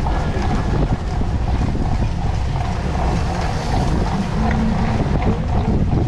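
Steady wind noise rumbling on the microphone of a rider's camera, over a cyclocross bike's tyres rolling through loose sand.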